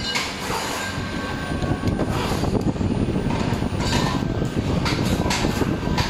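Loud workshop din: a steady rumble with frequent clicks and metallic clatter.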